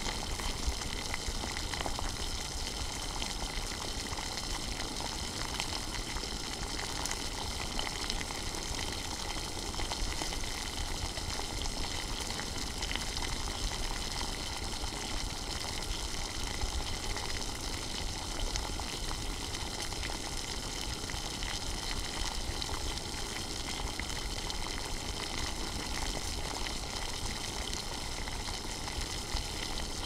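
Water at a rolling boil in a metal saucepan: steady bubbling with many small pops.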